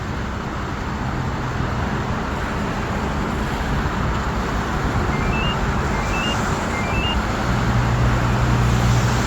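Daewoo Novus truck's turbo-diesel engine idling steadily, its hum growing a little stronger in the last couple of seconds. Three short rising electronic chirps sound faintly around the middle.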